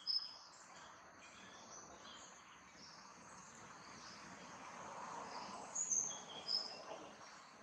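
Outdoor ambience: a steady background of insects, with short high bird chirps just after the start and again about six seconds in.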